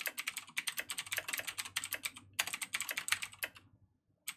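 Typing on a computer keyboard: quick runs of key clicks, broken by short pauses, the longest near the end.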